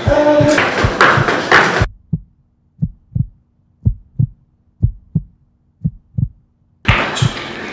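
Heartbeat sound effect: a steady double thump, lub-dub, about once a second. Backing music with a beat drops out about two seconds in, leaving the heartbeat alone, and comes back near the end.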